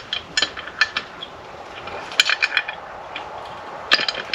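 Small metal parts and hand tools clinking and clicking while engine parts are fitted, in three short clusters of sharp metallic ticks.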